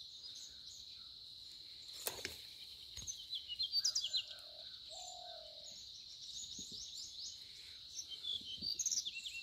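Birds chirping over a steady high insect drone, with a single sharp click about two seconds in.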